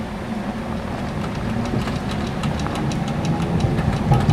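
Sasara broom snowplow streetcar approaching as it clears the tram tracks: its rotating bamboo brooms and drive run with a steady low hum that grows louder, with rapid clicking and pattering of flung snow building from about two seconds in.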